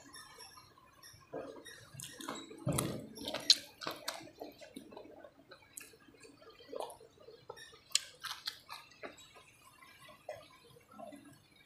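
Close-up wet chewing and lip smacks of a person eating a mouthful of curried greens and rice by hand, an irregular run of soft moist clicks, with louder smacks about three and a half seconds in and again at about eight seconds.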